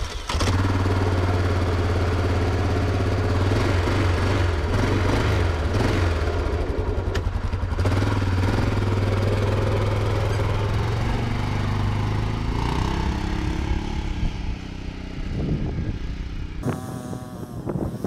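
Yamaha Grizzly 600 ATV's single-cylinder four-stroke engine running again after a no-start repair, first at a steady idle. About twelve seconds in, the revs rise as it pulls away, and the engine grows fainter near the end.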